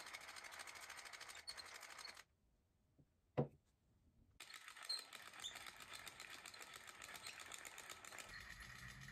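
Hand-cranked i-cord knitting machine being turned, its mechanism clicking fast and evenly. The clicking breaks off for about two seconds, with a single sharp knock in the gap, then resumes.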